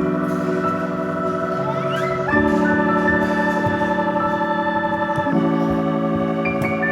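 Background music of held keyboard chords, changing to a new chord twice.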